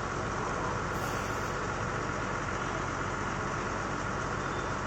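Borewell drilling rig's engine running steadily, a constant mechanical drone.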